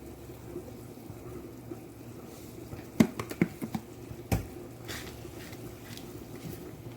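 Pot of saltfish and baked beans simmering on the stove, with a quick run of sharp clicks about three seconds in and a single knock just after four seconds, like a utensil or container tapping against the pot.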